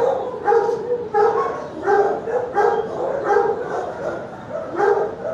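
Shelter dogs barking in the kennels: a string of short barks roughly every two-thirds of a second, with a brief lull near the end.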